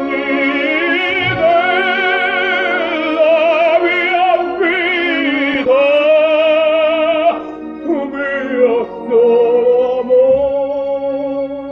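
Operatic tenor singing long phrases with a wide vibrato over an orchestra, with a short dip in the line about two-thirds of the way through.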